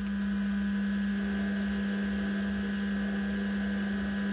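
Electric motor of a machine tool running steadily at constant speed, with a strong, even hum.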